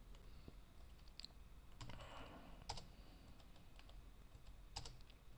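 Near silence with a few faint computer mouse clicks while folders are opened in a file dialog.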